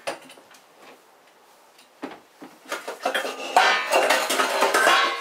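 Dishes clinking and clattering as a glass plate is pulled out from among others. Scattered clinks begin about two seconds in and grow into dense, loud clattering near the end.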